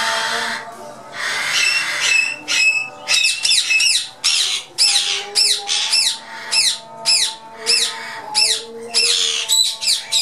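Indian ringneck parakeets calling: a long string of short, harsh screeches, two to three a second, each falling in pitch, starting about three seconds in.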